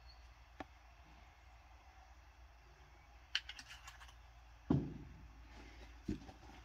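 Faint clicks and light clatter of kitchen items being handled, with a quick run of clicks about halfway through and a duller knock shortly after, then another knock near the end.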